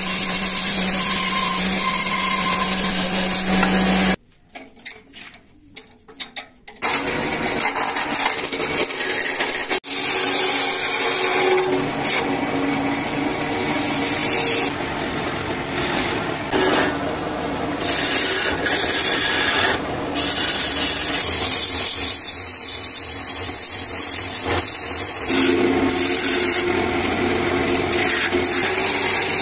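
Woodworking machinery: a machine motor hums steadily for the first few seconds, a short quieter stretch with scattered knocks follows, and then a wood lathe spins a wooden blank while a gouge cuts into it, giving a continuous rasping, shaving noise that shifts at several edit cuts.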